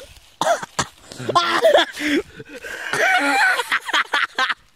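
People's voices exclaiming and laughing in amazement, with a few short crunches of steps in dry leaves.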